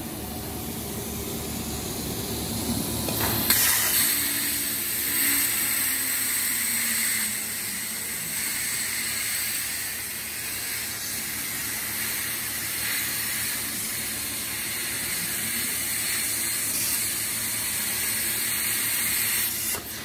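CNC plasma cutter's torch cutting thin galvanised steel sheet: a loud, steady hiss of arc and air. It starts suddenly with a sharp burst as the arc fires about three and a half seconds in, after a lower machine hum, and cuts off just before the end.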